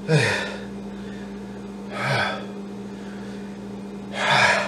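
A man gasping loudly three times, about two seconds apart, each gasp dropping in pitch.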